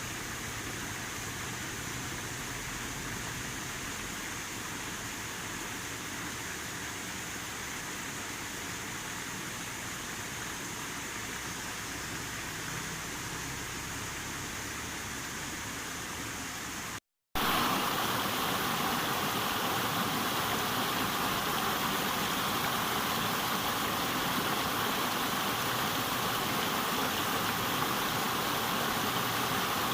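River water flowing in a steady rush. About two-thirds of the way through it breaks off for a split second and comes back louder.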